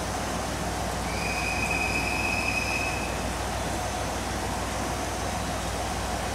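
KiHa 126 diesel railcar idling at the platform, its diesel engine giving a steady low rumble and hum. About a second in, a high steady tone sounds for about two seconds.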